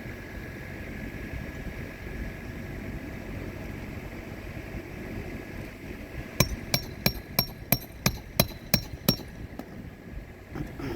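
Hammer striking a roofing nail nine times in quick succession, about three blows a second, each with a short metallic ring, as a shingle is nailed down during a repair. Before the blows there is only a low steady outdoor rumble.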